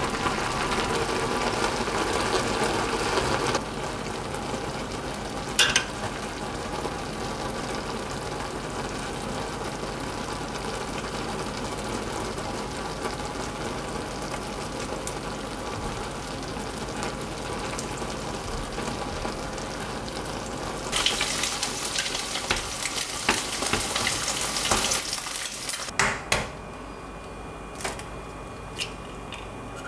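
Chapagetti instant noodles cooking in a pot of dark sauce, with a steady sizzle and wooden chopsticks stirring. There is a sharp click about six seconds in, and the cooking sound is louder again for a few seconds near the end. It then stops and gives way to a quieter background with a few small clicks.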